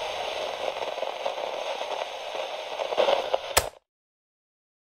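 Crackling, static-like noise full of small clicks, ending with a sharp click about three and a half seconds in, after which the sound cuts off.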